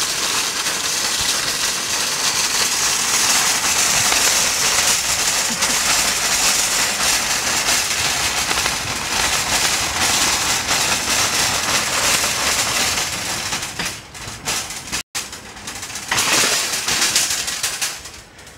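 Fabric rubbing against the microphone of a hand-held camera during walking: a loud, steady rustling hiss that breaks off a little after halfway and returns briefly near the end.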